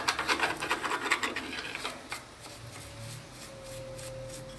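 Hand brush scrubbing the greasy metal mechanism on the underside of an old Elgin sewing machine with diesel: rapid scratchy back-and-forth strokes for about two seconds, then quieter handling.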